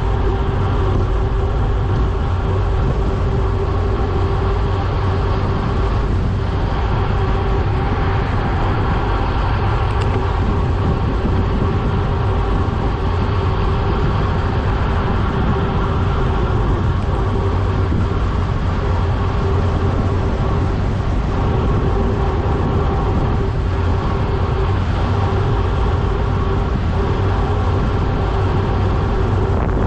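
Loud, steady wind rush on the microphone of a bicycle descending at about 33 mph, with road noise and a constant hum running underneath.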